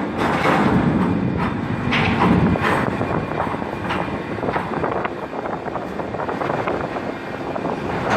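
Heavy port cargo-handling machinery running with a steady rumble and frequent irregular metallic clanks and rattles, busiest in the first three seconds.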